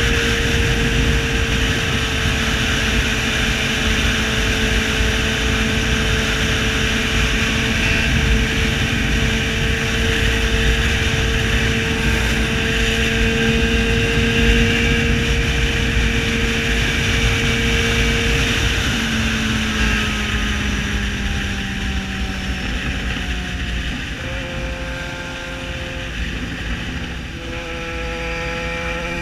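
Yamaha XJ6 Diversion motorcycle's inline-four engine through a full open exhaust, running at steady revs while riding. About two-thirds of the way through the revs fall away, and they climb again near the end.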